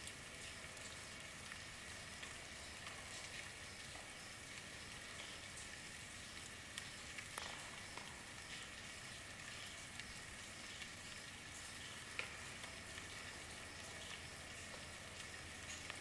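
Steady rainfall: a dense, even patter of drops, with a few louder single drops standing out.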